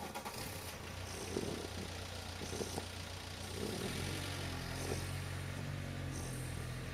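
Vizsla puppy snoring softly, about one snore every second or so, over the steady low hum of a car engine running; the engine hum grows stronger about four seconds in.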